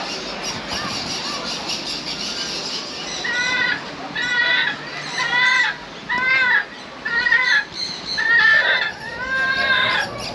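Birds calling: a dense chatter of many small birds, then from about three seconds in one bird gives a string of about seven short, harsh, arched calls, roughly one a second.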